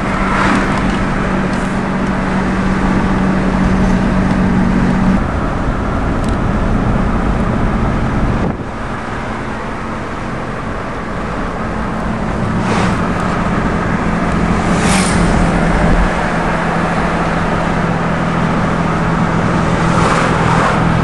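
Car engine hum and tyre and road noise heard from inside a moving car, with a brief drop about eight and a half seconds in.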